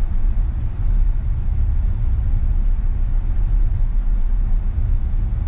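Steady low road and tyre rumble heard inside the cabin of a Tesla on the move.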